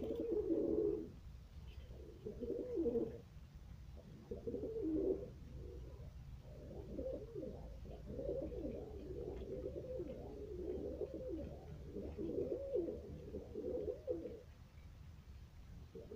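Several domestic pigeons cooing in overlapping bouts. The calls come in short separate bursts at first, run almost continuously from about six seconds in, and pause briefly near the end.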